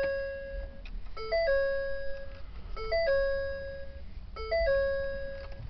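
Pickup truck's dashboard warning chime sounding with the key on and the engine not yet started: a quick few-note ding followed by a held tone, repeating about every one and a half seconds.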